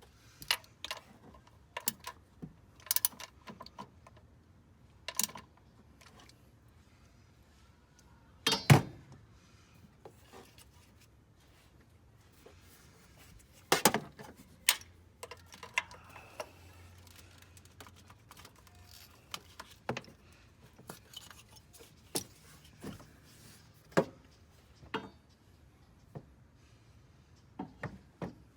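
Scattered metallic clinks and taps of hand tools and small parts being handled, with two louder sharp knocks about a third of the way and halfway through.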